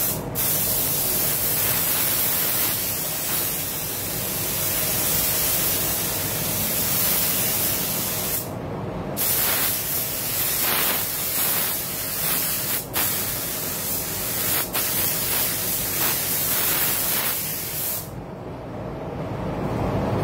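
SATA RP spray gun at 2 bar spraying clear coat onto a car's body in long hissing passes. The trigger is let off for about a second around eight seconds in and for two brief moments later. The spray stops about two seconds before the end.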